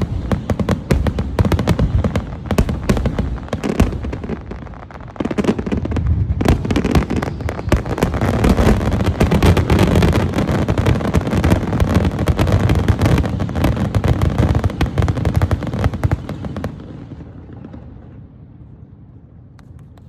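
Fireworks finale: a rapid, dense barrage of bangs and crackling bursts, growing heavier and loudest in the middle, then dying away over the last few seconds into rumbling echoes.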